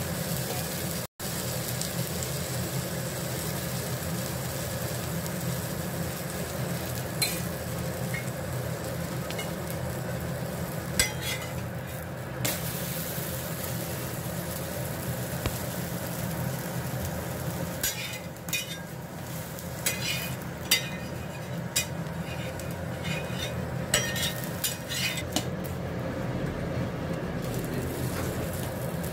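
Egg paratha sizzling as it fries on a flat tawa griddle, with a steel spatula scraping and clicking against the pan several times as the paratha is lifted and turned, the clicks bunched in the later half.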